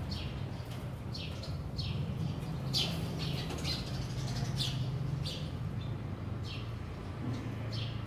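Sparrows chirping: a dozen or so short, downward-sliding chirps, scattered unevenly, over a low steady hum.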